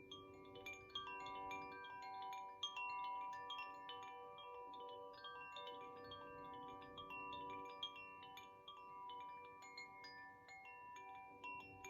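Koshi chime in the Ignis (fire) tuning, swung so that its clapper keeps striking the tuned rods in a continuous, irregular tinkling. Many tones overlap and ring on together.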